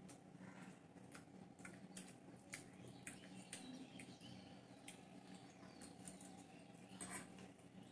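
Faint eating sounds: scattered small clicks and scrapes of forks against plates as noodles are twirled and slurped, over a faint steady hum.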